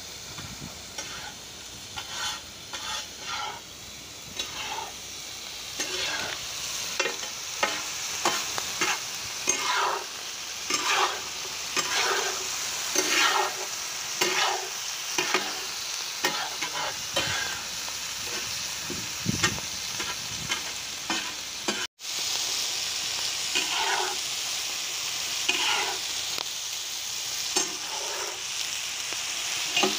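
Chicken pieces sizzling on a large tawa with a steady hiss, while a metal spatula scrapes and clanks against the pan again and again as they are stirred.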